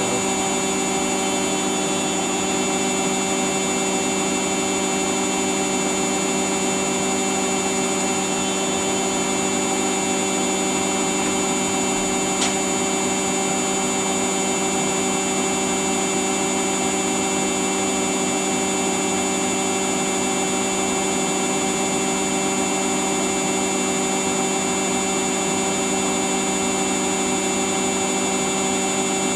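A household appliance's motor running steadily with a constant hum and whine. There is one brief click about halfway through.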